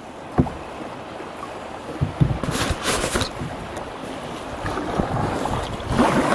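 Rushing river water sloshing against a kayak paddled against the current, with wind on the microphone. A burst of paddle splashes comes about two and a half seconds in, and more splashing follows near the end.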